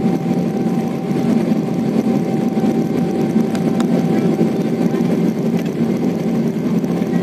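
Boeing 777-300ER cabin noise heard from a seat over the wing while taxiing: the GE90 engines and airflow make a steady rumble with a thin, steady whine above it.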